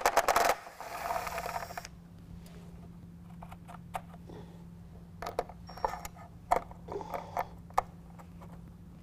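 Cordless drill with a 10 mm socket whirring briefly near the start as it spins a nut off a stud on a plastic truck grille, followed by scattered clicks and taps of the tool and nuts against the plastic.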